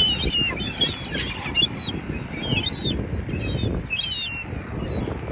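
Many birds at a feeding spot chirping and twittering in quick, overlapping high calls, over a low, uneven rumble.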